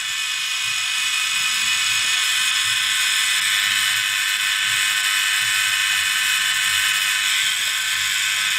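Small electric fan motor in a powered-up Aoyue 2702 soldering station, running steadily with a loud, high-pitched whir.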